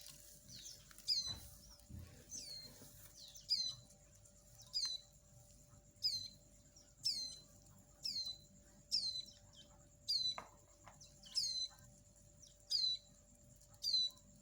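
Nestling songbirds giving begging calls while being hand-fed cricket abdomens: short, high chirps that drop quickly in pitch, repeated about once a second, often in pairs. These are the chicks' feeding response.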